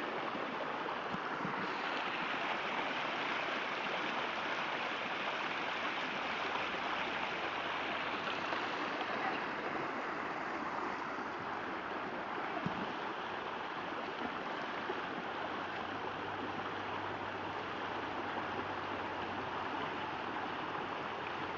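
Shallow creek's water rushing and rippling steadily.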